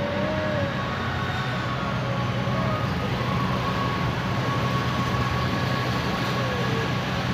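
Steady low rumble of urban ambience with a constant hum and a held whine, and faint distant voices now and then.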